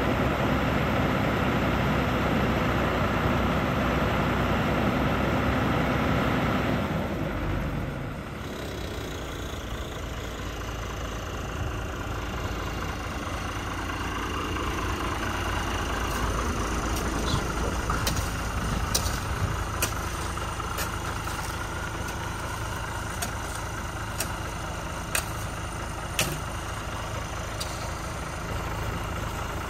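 Heavy diesel truck engine idling steadily. It drops a little in level after about seven seconds, and several sharp metallic clicks sound in the second half.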